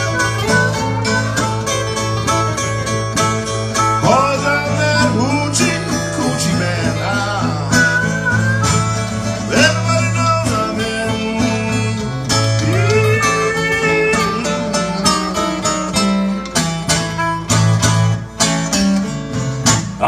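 Blues harmonica solo with notes bent up and down, over acoustic guitars strumming a repeating low riff.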